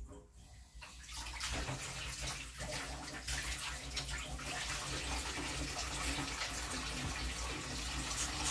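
Kitchen faucet running water into a stainless steel sink, starting about a second in, with gloved hands working under the stream.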